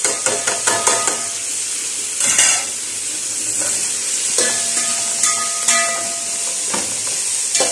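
Shrimp with onion, garlic and green chili sizzling in a metal pot while a spoon stirs them, scraping and clinking against the pot several times over a steady sizzle.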